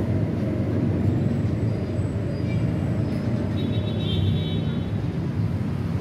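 Steady road traffic outside, a continuous low rumble of passing vehicles. A faint high-pitched tone sounds briefly about two-thirds of the way through.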